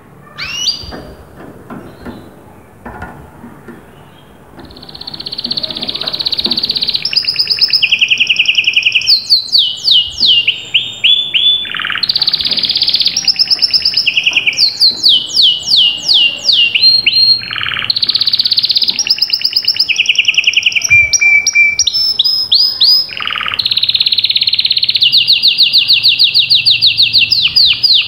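Domestic canary singing a long, loud song of rapid trills and rolls, moving between fast repeated notes and runs of quick falling sweeps. A few faint clicks come before the song starts, about four and a half seconds in.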